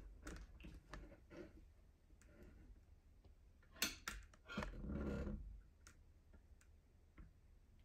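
Faint scattered clicks and taps, sharper about four seconds in, followed by a brief louder rustle: handling noise from the camera being moved.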